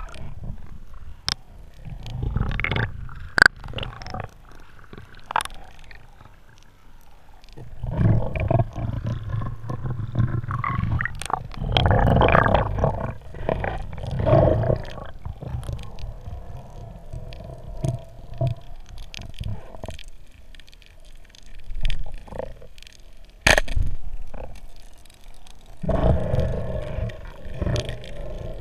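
Muffled underwater sound of a snorkeling spearfisher: slow breaths through the snorkel in swells of a second or more, with water movement and scattered sharp clicks against the camera housing.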